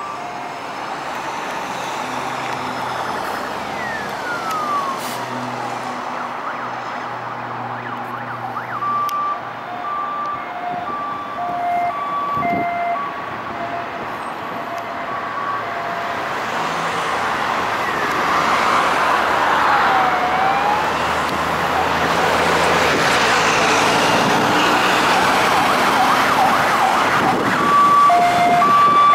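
Siren of an unmarked BMW 330d police car on an emergency run, coming closer through busy road traffic. It switches between sweeping wail tones and a two-tone hi-lo pattern, and grows louder toward the end.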